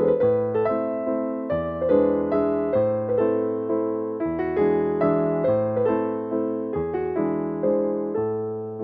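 Background music: a piano or electric-piano tune, several notes a second over deeper notes that change every second or two.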